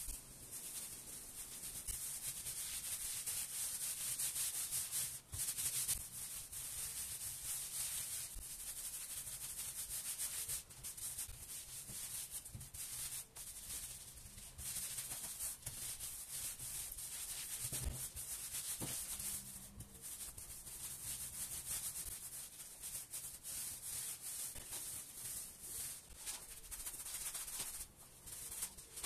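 Repeated dry rubbing strokes across wooden boards, a continuous scratchy hiss that comes and goes with each irregular stroke.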